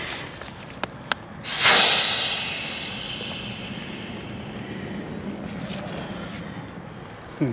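Air rushing out through the valve of an inflatable tent air beam, a sudden loud hiss about a second and a half in that tapers off over several seconds. The valve's inner part is sticking and not seating, so the beam deflates through it.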